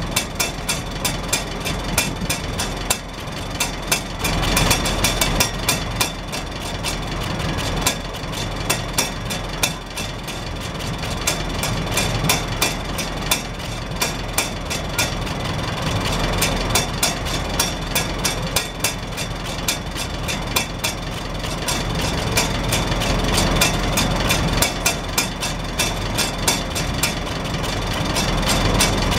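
Farmall Super H tractor's four-cylinder engine idling steadily out of its vertical exhaust stack. A rapid run of clicks rides over the engine note, from the hinged rain-cap flapper bouncing on the exhaust pulses.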